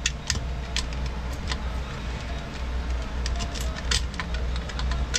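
Timing chain and cam sprocket of a Sea-Doo Rotax engine clinking as the chain is worked off the sprocket by hand: light, irregular metal clicks over a steady low hum.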